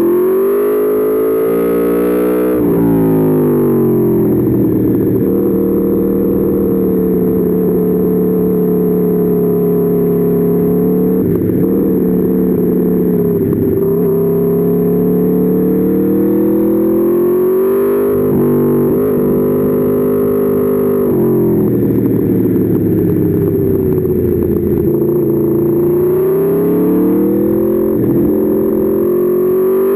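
Aprilia Tuono V4 motorcycle's V4 engine at speed, its pitch rising and falling with the throttle through the corners, with a sharp drop a few seconds in and several brief dips later.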